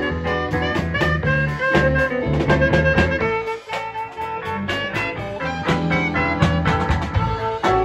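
Live band playing a swing-style jazz tune: a saxophone carries the melody in held notes over a drum kit and an electric keyboard with low bass notes. The bass drops out briefly near the middle.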